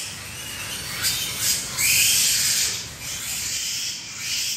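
Piglets squealing: several short, high-pitched squeals, one rising in pitch about two seconds in, over a steady low background hum.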